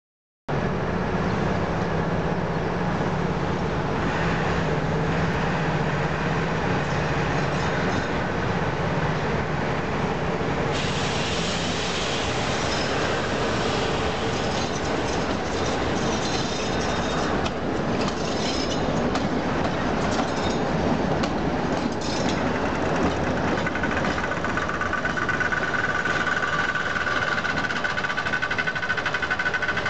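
Romanian Class 60 (060-DA) diesel-electric locomotive running under power at low shunting speed, its engine droning steadily. From about ten seconds in, wheels clatter over the rails and points, and a steady high whine sets in near the end.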